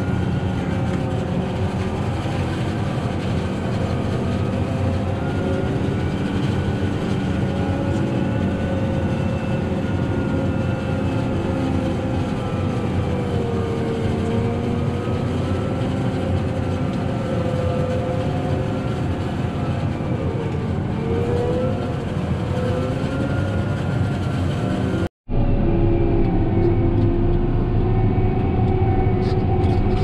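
Case IH tractor engine running steadily under load, heard from inside the cab, with a John Deere self-propelled forage harvester chopping corn close alongside; the engine tones waver slightly. A brief break near the end, after which the engine runs on with a deeper rumble.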